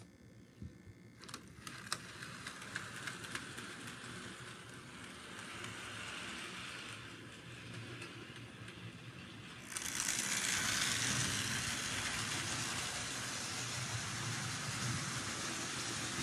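Electric model train locomotives running on track: a click about a second in, then a steady whir of motor and wheels that gets clearly louder from about ten seconds in as the nearby New York Central 0-4-0T tank engine gets moving with its ore cars.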